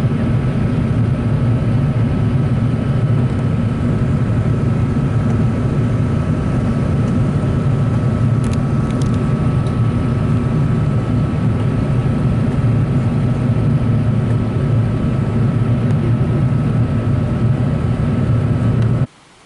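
Airbus A380 cabin noise during the climb after take-off: a steady, loud low rumble of engines and airflow with a thin steady whine above it. It cuts off suddenly near the end.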